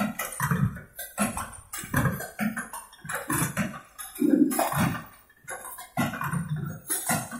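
Vertical form-fill-seal snack packing machine running, with a quick, uneven clatter of knocks and hisses, two or three a second.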